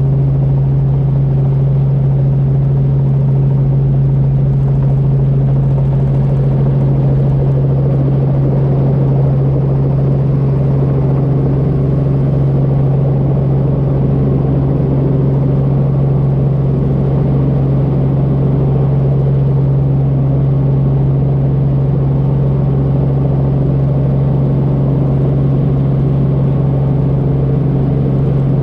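Training helicopter's engine and rotors running with a steady, unbroken drone at one strong low pitch, heard from inside the cabin while it air-taxis back to its landing spot.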